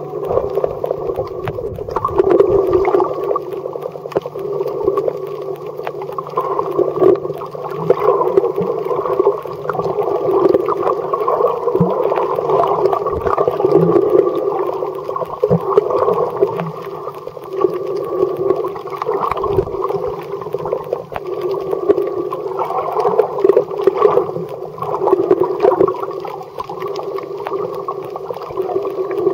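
Muffled underwater noise picked up by a camera submerged in a waterproof housing: a steady churning wash of water that swells and fades irregularly, with a few faint low thuds.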